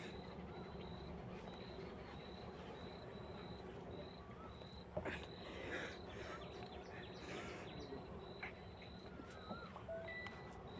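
Faint rural outdoor ambience: a short high chirp repeats about twice a second, a few warbling bird calls come near the end, and a single knock sounds about halfway through.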